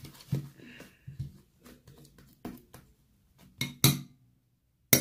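A utensil knocking and scraping against a bowl while stirring slime: a run of soft taps and clinks, with two sharper knocks a little before four seconds in and another near the end.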